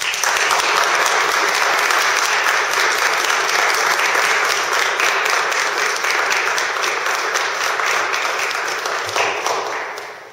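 Audience applauding: clapping that starts all at once, holds steady for about ten seconds and dies away near the end.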